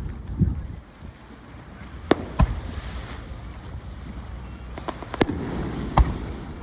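Aerial fireworks shells bursting: about six sharp bangs with deep booms at uneven intervals, the loudest about five seconds in, over a steady low rumble.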